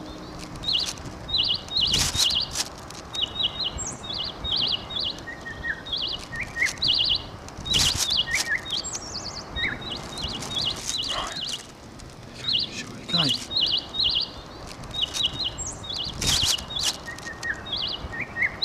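Small birds chirping over a steady hiss of outdoor background noise, their short high chirps coming in quick runs throughout. Three loud, brief thuds come in about two, eight and sixteen seconds in.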